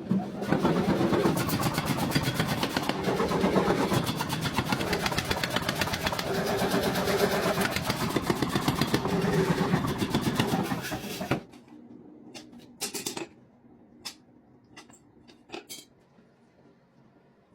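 A machine running with a fast, even, rhythmic pounding that stops abruptly about eleven seconds in, followed by a few scattered light metal clinks.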